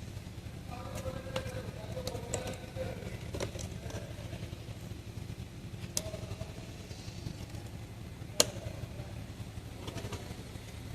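Scattered sharp metallic clicks and clinks of hand tools on the vehicle as parts are refitted, two louder clicks standing out, over a steady low background hum.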